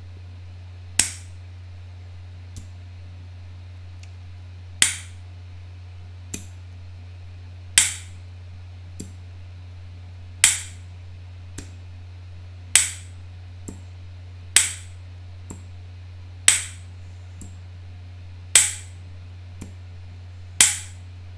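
A 3D-printed solid PLA bistable compliant switch being flexed by hand between its two stable states in a lifecycle test: a sharp loud snap about every two seconds, each followed by a softer click as it flips back. A steady low hum runs underneath.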